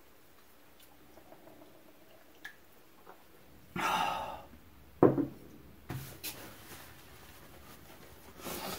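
A man's short breathy sounds, the loudest about five seconds in. Near the end comes the rustle of a paper napkin wiped over his mouth and nose.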